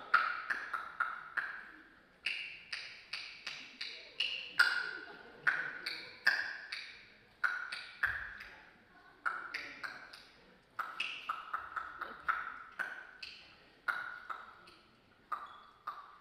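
Quick runs of short, bright pings made with the voice as mime sound effects, each starting sharply and dying away fast, at pitches that jump up and down between notes.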